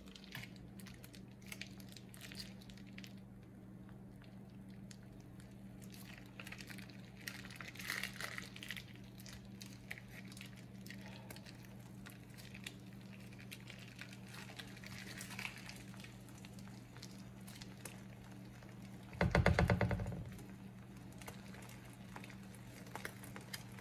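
Omelette cooking in butter in a nonstick pan, with faint scattered crackles and pops over a steady low hum. About 19 seconds in, a louder rasping rattle lasts for a second or so.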